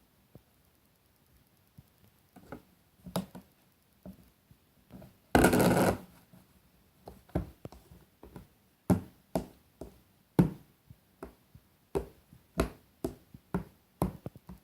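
Stiff homemade slime being stirred with a utensil in a container: irregular sticky clicks and knocks, with one louder rough scrape about five and a half seconds in, then a run of sharp taps roughly twice a second.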